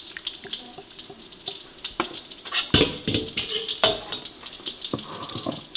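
A ladle serving thick chicken curry into a ceramic tureen: sauce pouring and splashing, with several clinks of the ladle against the bowl, the loudest about three and four seconds in.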